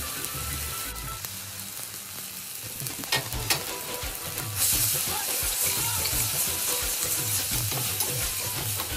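Chopped onions and peppers sizzling in hot oil in a balti pan over a gas burner, with a couple of sharp utensil clicks about three seconds in. About halfway through the sizzle suddenly gets louder and hissier as liquid from a ladle goes into the hot pan and throws up steam.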